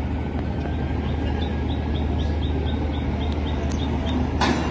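Steady low engine drone. A run of short high chirps, about four a second, sounds for a couple of seconds in the middle, and a brief sharp noise comes near the end.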